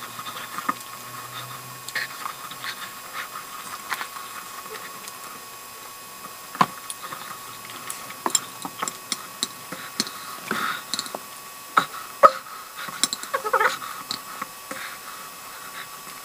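Close-miked eating sounds: chewing of Spam and spicy instant noodles, with wet mouth clicks and smacks scattered throughout, busier in the second half, over a faint steady hum.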